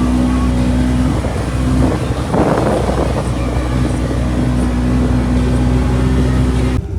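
Side-by-side UTV engine running steadily, with a rush of noise about two and a half seconds in. The sound changes abruptly just before the end.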